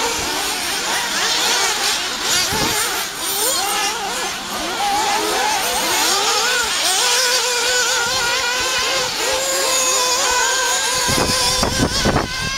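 Several radio-controlled off-road model cars racing, their small engines buzzing and whining, rising and falling in pitch as they accelerate and brake. A few low thumps come near the end.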